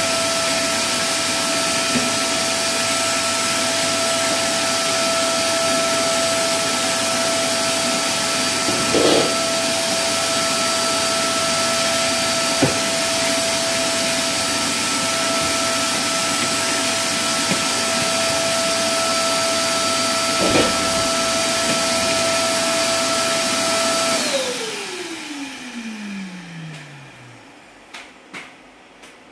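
Vacuum cleaner running steadily with a high motor whine and a few brief knocks from the wand, then switched off near the end, its pitch falling away as the motor spins down.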